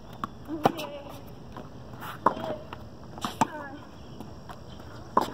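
Tennis rally on a hard court: the ball struck by the rackets and bouncing, four sharp hits about one and a half seconds apart with fainter ticks between, and short pitched sounds alongside some of the hits.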